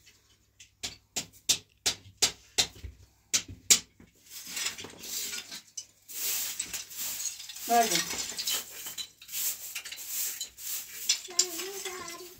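Straw hand broom sweeping a bare earth floor: a string of separate, scratchy strokes, then quicker, near-continuous sweeping from about four seconds in.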